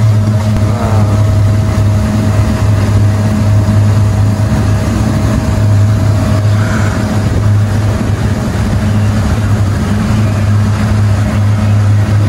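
Passenger boat's engine running steadily under way, a constant low drone, with water rushing past the hull.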